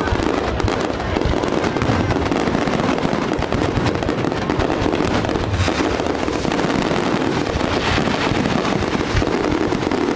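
Fireworks display: a dense, unbroken barrage of bangs and crackling.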